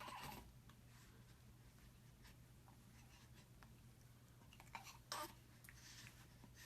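Near silence: room tone with a low hum and a few faint, short scratchy noises, two of them about five seconds in.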